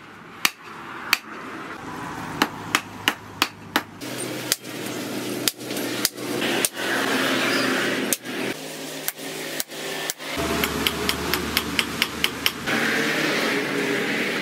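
Hand hammer striking red-hot steel rebar on an anvil: single blows at uneven intervals of roughly half a second to a second, then a quick run of lighter strikes at about four or five a second about three-quarters of the way through.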